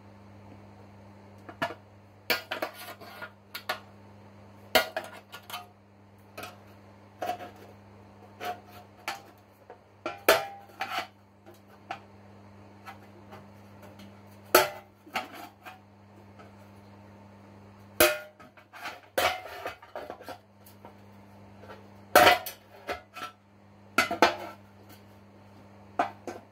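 Irregular sharp metallic clanks and taps from sheet-steel parts being handled and worked, over a steady low hum.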